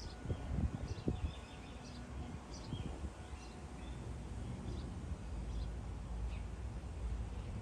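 Small birds chirping on and off over a steady low outdoor rumble, with a few low thumps in the first second.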